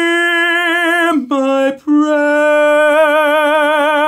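A man singing in an operatic style with wide vibrato: a high note held for about a second, a brief lower note, a short break, then a lower note held for about two seconds that cuts off suddenly.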